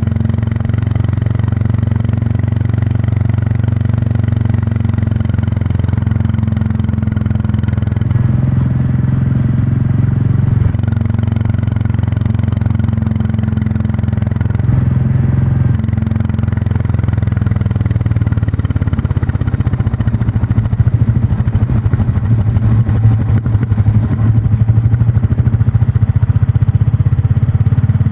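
Royal Enfield Classic 350's single-cylinder engine and exhaust running steadily under way, its note shifting a couple of times and getting louder and rougher about two-thirds of the way through as the throttle opens.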